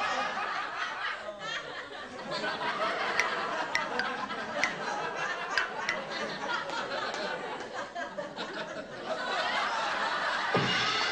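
Group laughter with chuckles and snickers over a steady murmur of voices, with a few sharp clicks in the middle.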